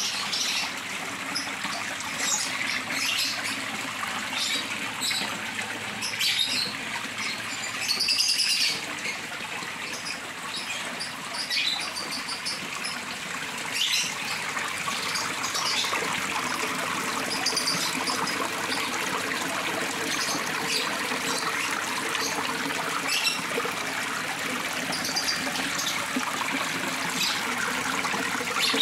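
Water trickling and splashing steadily as many thin streams run down a paludarium's rock wall into the pond. Short bird chirps come now and then over it, the longest about eight seconds in.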